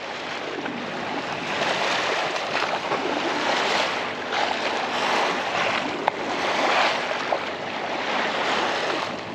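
Bow wave of a sailboat under sail, water rushing and splashing against the hull in uneven swells.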